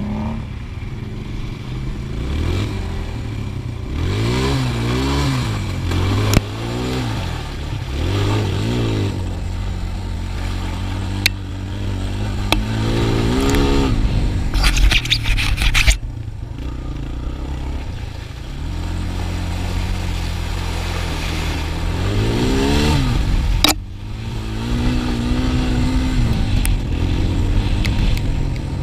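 2008 Suzuki LTZ 250 quad's single-cylinder four-stroke engine revving, its pitch rising and falling again and again as the throttle is opened and closed on a dirt track. A few sharp knocks come through, and a loud rattling burst is heard about halfway.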